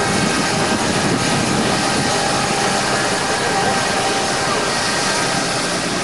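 Steady, loud aircraft engine noise with a few faint steady tones in it, over the chatter of a crowd.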